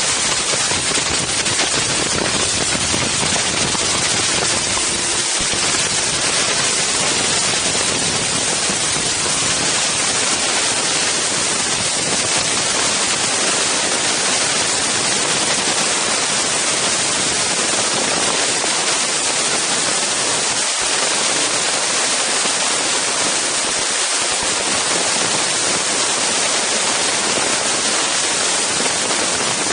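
Strong wind blowing across an Insta360 One X camera's microphones: a loud, steady hiss with no break.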